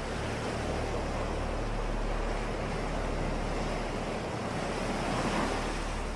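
Ocean surf washing on a beach with wind, a steady rushing noise that swells louder about five seconds in, over a low steady hum.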